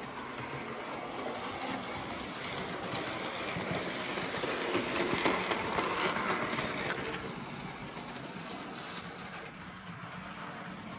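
Model railway locomotive running on the layout's track, its motor and wheels getting louder as it passes close by about five seconds in, then fading away.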